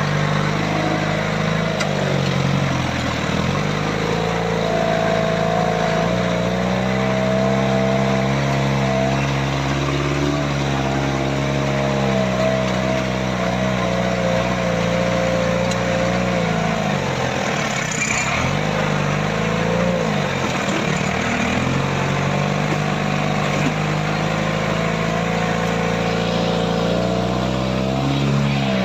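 Off-road Jeep's engine running under load, heard from inside the cabin, its pitch rising and falling as the driver works the throttle on a rough track. The revs drop away for a few seconds about two-thirds through, then build again.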